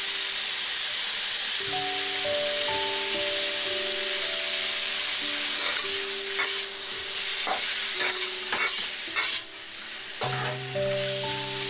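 Chicken and shrimp sizzling in hot oil in a steel wok. From about halfway through, a metal spatula scrapes and tosses the food in a run of quick strokes, with a short dip in the sizzle near the end.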